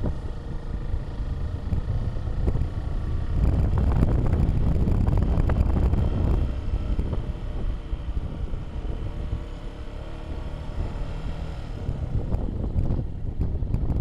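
Wind buffeting the microphone over the low rumble of a moving vehicle, swelling louder for a few seconds in the middle and again near the end.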